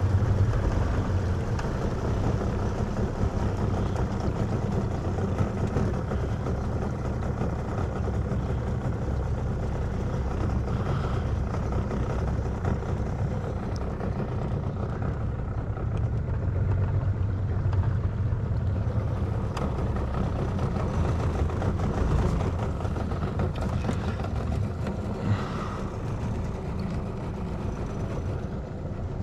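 Fishing boat's outboard motor running steadily underway, a constant low engine note with a rushing hiss over it.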